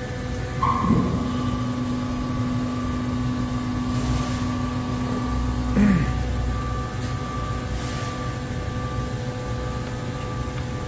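Hydraulic pump drive of a Bystronic Xpert 320-ton CNC press brake running with a steady whine during its start-up initialisation. A second, lower tone comes in about a second in and falls away near six seconds in, while the tool clamping and axis positioning steps run.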